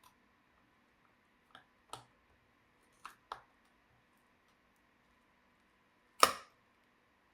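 Small sharp clicks and taps from laptop parts being handled during disassembly: four light clicks in the first half, then one louder knock about six seconds in.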